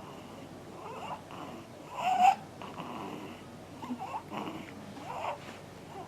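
Snoring in short, squeaky breaths about once a second, with a louder, higher rising note a little over two seconds in.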